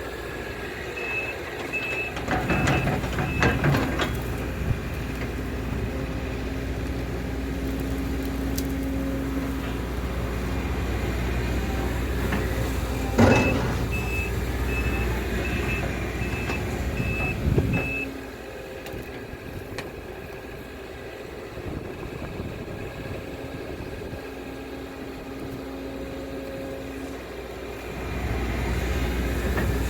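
Case CX210D excavator's diesel engine running, with its warning alarm beeping in two short runs, one near the start and one about halfway through, and a few sharp clanks. The engine drops to a lower, quieter note about 18 seconds in and rises again near the end.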